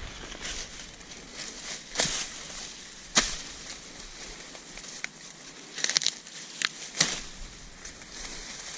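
Dry, mature corn plants rustling, with irregular sharp crackles and snaps of brittle leaves and husks being pushed through or handled.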